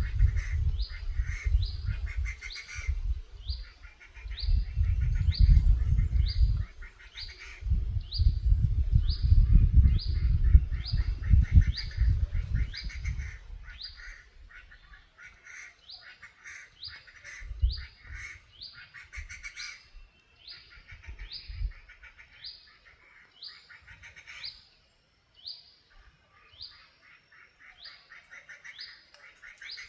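A bird call played through a loudspeaker, repeating very evenly: a short high falling note about every 0.7 s, each with a buzzy lower trill. A low rumble on the microphone fills the first half and fades out about halfway through.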